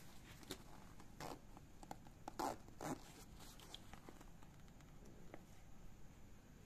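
Zipper on an Eiger Clutch 1.0 fabric waist bag being drawn in several short, faint strokes, the loudest about two and a half to three seconds in.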